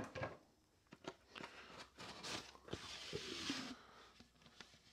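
Quiet handling noises of a high-power model rocket on a workbench: a few light taps and clicks, then a soft rustling scrape about two seconds in as the body tube is lifted and turned.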